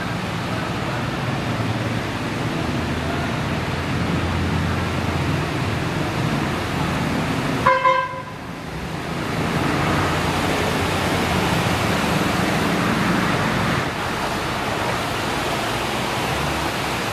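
Steady rush of rain and street traffic, with a vehicle horn giving a short double toot, the loudest sound, about eight seconds in.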